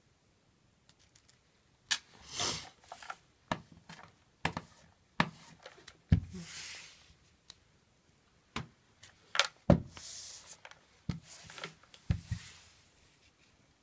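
A handheld iron is set down with knocks and pushed along a pre-glued silk border strip on a paper painting, giving about one-second scraping rustles, with separate clicks and paper handling in between. The heat presses the silk border onto its glue layer.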